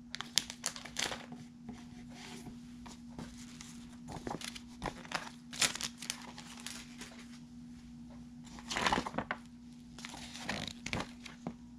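Plastic snack wrappers crinkling in the hands, then paper booklet pages rustling as they are handled and turned, with a louder rustle about nine seconds in. A steady low hum runs underneath.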